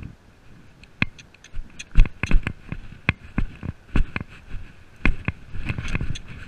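A horse's hooves striking ground at a quickening pace, with tack and the rider's chest-mounted camera clicking and knocking. The sharp, uneven knocks begin about a second in and grow louder and busier.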